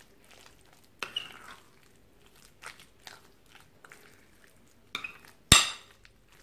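A utensil mixing sticky minced chicken with soy sauce in a glass bowl: scattered soft scrapes and clicks against the glass, with one sharp clink about five and a half seconds in.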